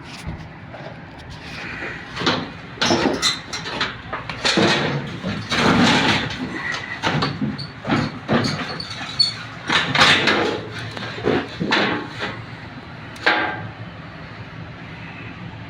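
Irregular scrapes, clunks and rattles of metal parts being handled and worked by hand, in uneven bursts with a few sharper knocks.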